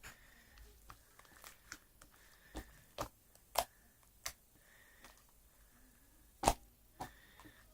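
Irregular sharp clicks and taps in a small room, about a dozen, unevenly spaced, with the loudest one about six and a half seconds in.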